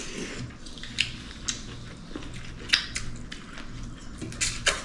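A person chewing a mouthful of rice and chicken close to the microphone, with several sharp smacks and crunches.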